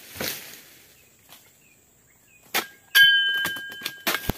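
Long-handled steel palm chisel (dodos) striking oil palm frond bases to cut them off: a few hard chops, the loudest about three seconds in leaving a metallic ring for about a second, with quick clicks and another chop near the end.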